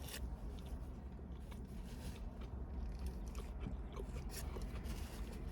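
A person chewing a mouthful of burger, with faint small wet clicks of chewing over a low steady hum.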